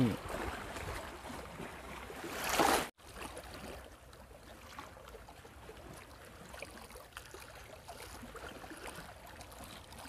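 Small waves lapping and washing against shore rocks, a soft, even watery hiss. A louder rush near three seconds in cuts off suddenly, and the lapping continues more quietly after it.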